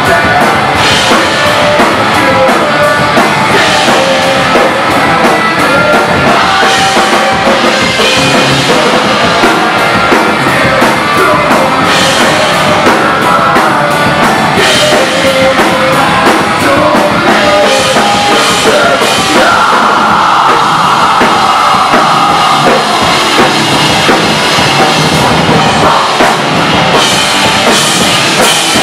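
A live rock band plays loudly: a pounding drum kit and electric guitar, with a singer on a microphone. A note is held for a few seconds a little past the middle.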